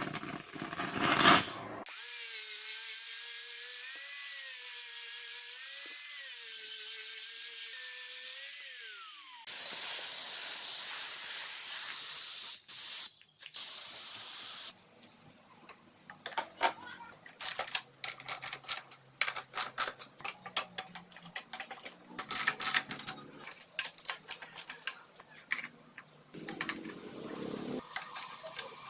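A small electric power tool whirring with a wavering pitch for several seconds, then winding down. A loud steady hiss follows for a few seconds and cuts off, and then comes a long run of light clicks and taps.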